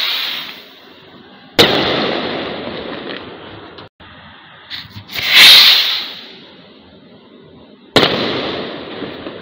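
Kwitis, small Filipino bottle rockets, launched one after another. A sharp bang about one and a half seconds in has a long echoing tail. Then comes the hissing whoosh of a rocket taking off around five seconds in, and a second bang near the end that echoes away.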